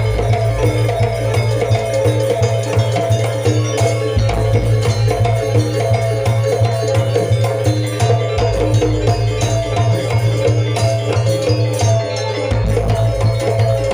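Banyuwangi janger gamelan playing: drums with quick strokes and metallophones repeating their notes.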